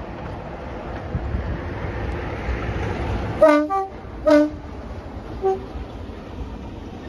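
A passing train rumbles, growing louder, and about halfway the two-tone horn of Class 33 'Crompton' diesel locomotive D6566 gives short blasts that switch between a low and a high note, with a faint high note a second later.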